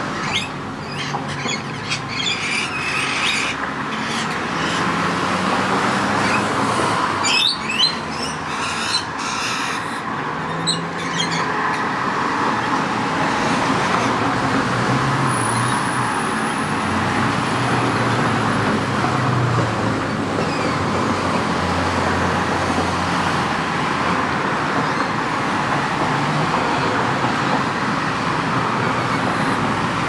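Steady urban traffic noise, a continuous rumbling wash of passing vehicles, with short high bird calls scattered through the first ten seconds or so.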